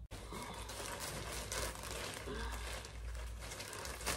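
Packaging crinkling and rustling as the next purchase is handled and unwrapped.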